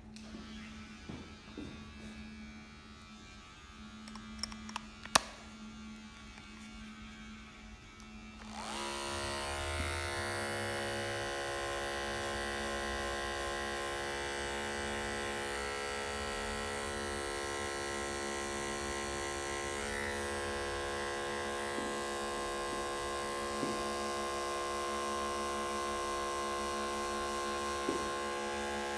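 Andis Supra ZR cordless hair clipper, fitted with a 2 mm blade, switched on about eight and a half seconds in and then buzzing steadily as it cuts up the back of the neck to blend a fade. A single sharp click comes a few seconds before it starts.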